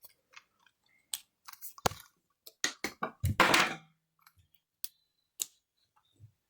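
Scattered clicks, taps and light knocks of a small RC servo and hard plastic parts being handled, with a louder clatter a little over three seconds in.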